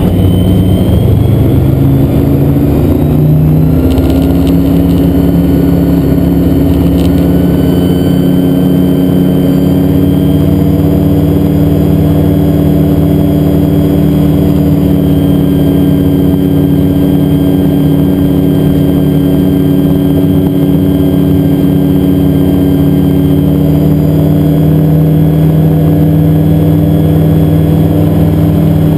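Xenon IV gyroplane's engine and propeller, heard from inside the cockpit, rising in pitch over the first few seconds as the power comes up, then running steadily at high power through the takeoff roll.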